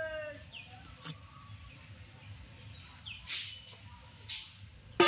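A knife scraping through thick drumstick stalks in short strokes, a second or so apart, with a bird's short falling chirps behind. A sharp ringing knock comes right at the end.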